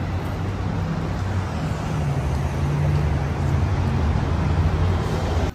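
Steady road-traffic noise with a low engine drone from passing or nearby vehicles.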